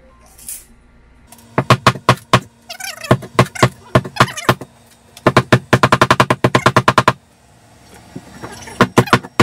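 Claw hammer striking a painted wooden wall rail, splitting the wood, in several quick runs of sharp blows with short pauses between; the fastest run goes at about six blows a second.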